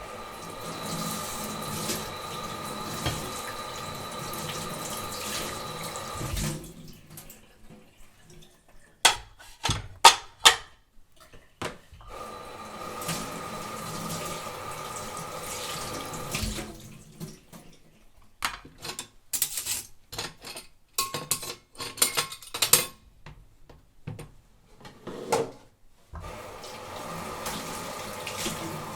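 Washing dishes by hand at a kitchen sink: the tap runs into the sink in stretches of several seconds, and between them dishes, cups and glasses clink and clatter as they are handled. The tap runs three times, and the loudest sharp clinks come about ten seconds in.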